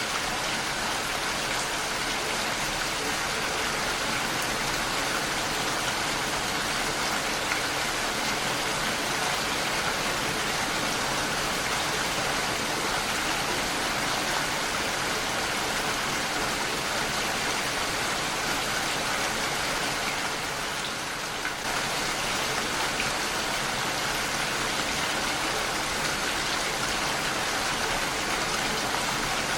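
Heavy rain falling steadily on a window, a dense, even hiss of drops that eases slightly for a moment about two-thirds of the way through.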